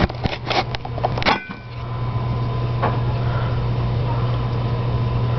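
A quick run of clicks and knocks from a camera being handled and rigged up, then a steady low hum.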